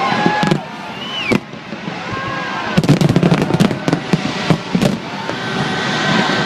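Aerial fireworks going off: scattered sharp bangs, then a rapid run of crackling reports about three seconds in.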